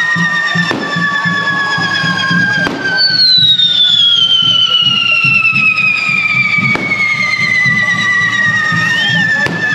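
Firework fountains spraying sparks with a steady hiss and several long whistles that slowly fall in pitch, a new high whistle starting about three seconds in. A few sharp cracks go off.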